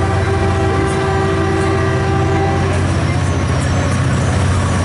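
Caltrain passenger train passing close by: the steady rumble of the bilevel cars rolling over the rails, under a low, steady diesel locomotive hum. A set of steady higher tones carries over the rumble and stops about three seconds in.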